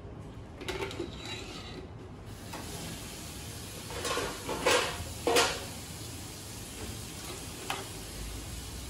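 Crabs boiling in a large stainless-steel pot, stirred with a long-handled metal skimmer: steady bubbling of the boiling water, with a few splashes and clinks of the skimmer against the pot, the loudest a pair about five seconds in.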